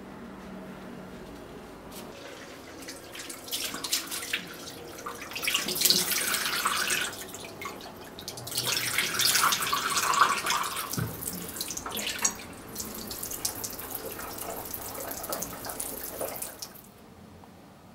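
Water running from a bathroom sink's mixer tap into cupped hands and splashing into the basin, during wudu, the ritual washing of hands, face and arms before prayer. The water starts a few seconds in, splashes loudest in two stretches, and stops suddenly near the end.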